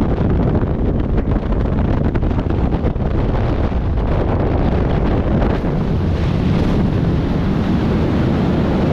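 Rushing freefall wind buffeting a skydiver's camera microphone: loud, steady, low roaring wind noise.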